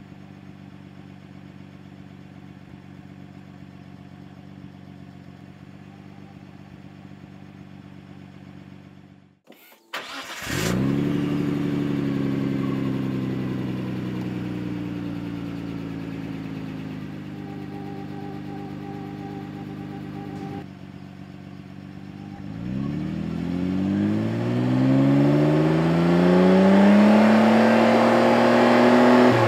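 Nissan R32 Skyline GT-R's RB26DETT twin-turbo straight-six running through a Midori titanium muffler: a steady idle at first, then about ten seconds in it is raised and held at a higher note that sags slowly. Near the end it revs up and holds at high revs, about 75% of maximum-power rpm with the tachometer near 4,750, where the sound meter reads about 92 dB, for a stationary close-range exhaust-noise test.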